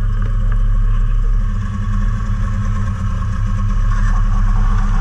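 Snowmobile engines idling steadily, the camera's Yamaha sled and a second sled beside it.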